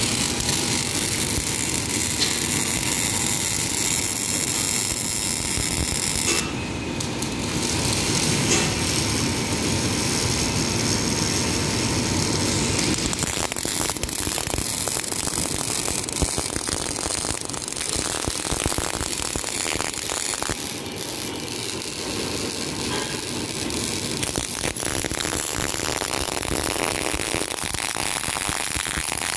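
Electric arc welding on steel plate: the arc crackles and sizzles steadily, with a dense run of fine pops.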